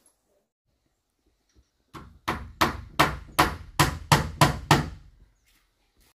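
A hammer striking wood in a steady run of about nine blows, roughly three a second, starting about two seconds in and stopping near five seconds; this is typical of driving a nail into timber during construction.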